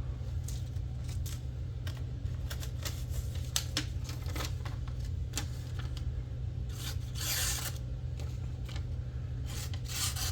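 Case Wharncliffe pocketknife blade being drawn through paper to test its edge: a string of short scrapes and paper rustles, with a longer tearing rustle about seven seconds in. The blade is dull and snags rather than slicing cleanly, though stropping has helped. A steady low hum runs underneath.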